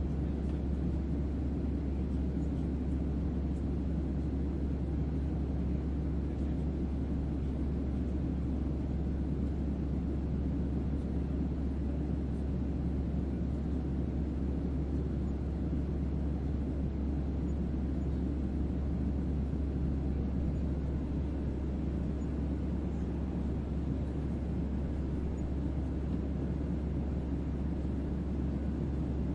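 Airplane ambience: a steady, unchanging low rumble of an airplane's engines and airflow.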